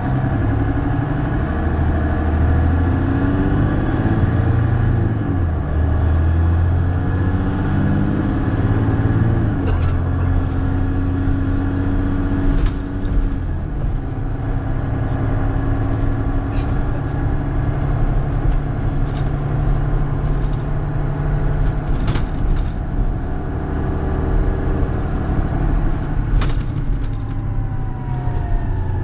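Mercedes-Benz Citaro Facelift city bus's diesel engine heard from inside the bus. It revs up in steps through the gear changes over the first ten seconds, then runs steadily at speed, with knocks and rattles from the body. A falling whine comes near the end.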